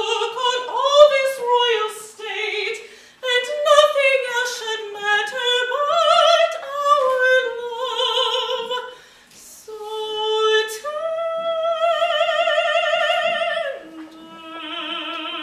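Woman singing in an operatic style with strong vibrato: phrases of moving notes, then a long held high note that drops to a lower held note near the end.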